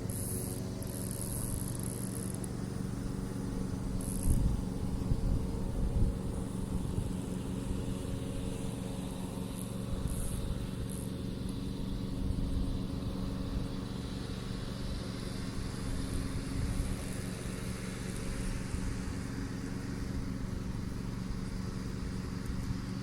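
A steady low motor hum, with a few short high chirps near the start and some low knocks a few seconds in.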